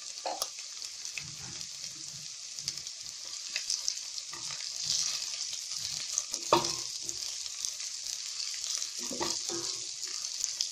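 Chopped onions with spices frying in oil in a steel pan, sizzling steadily while a spatula stirs and scrapes against the metal. The loudest scrape comes a little past halfway, with a few more near the end.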